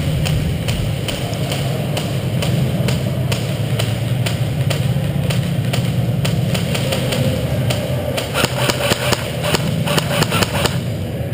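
Airsoft guns firing: scattered single sharp shots, then rapid bursts of shots from about eight seconds in until shortly before the end, over a steady low rumble.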